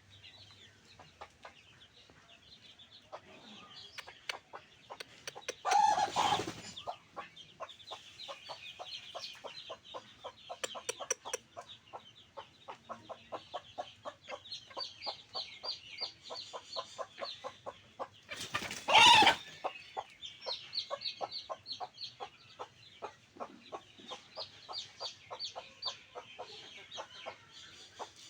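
Backyard chickens clucking and making high chirping calls, over dense rapid clicking. Two loud short calls stand out, about six and about nineteen seconds in.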